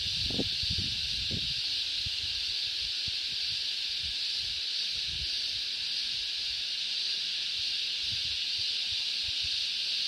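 Cicadas in a loud, steady, unbroken high-pitched chorus. A few low thumps in the first second or so.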